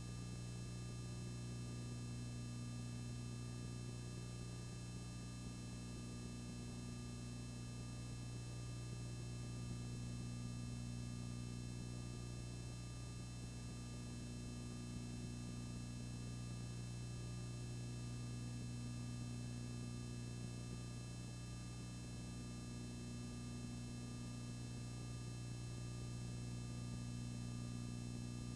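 Steady low electrical hum with faint high whine.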